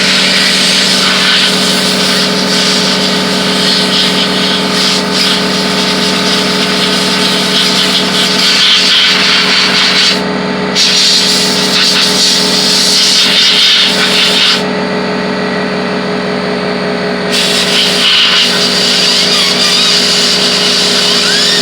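A powered air blower or compressor runs with a steady hum while its air jet blasts dust out of a laptop's cooling fan and heatsink. The air stops for a moment about ten seconds in, and again for a few seconds around fifteen seconds, while the motor keeps humming.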